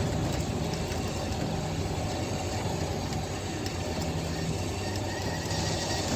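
A vehicle engine idling steadily, a continuous low hum.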